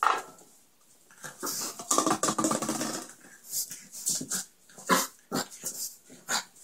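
A French bulldog puppy playing with an empty plastic water bottle on a tile floor: the bottle crackles and clatters against the tiles in irregular bursts, thickest about a second in, with sharp knocks later on and the puppy's own small dog noises mixed in.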